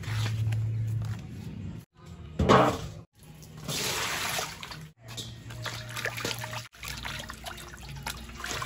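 A knife cutting banana leaf, a sharp knock about two and a half seconds in, then water poured from a plastic jug into a stainless-steel basin with a steady hiss. After that come small splashes and drips as hands rub and rinse a banana leaf in the basin.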